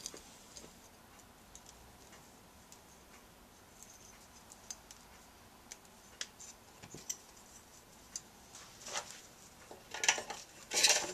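Scattered faint clicks and light metal taps as small carburetor parts are handled. About ten seconds in comes a burst of louder metal clattering at an open can of carburetor dip cleaner.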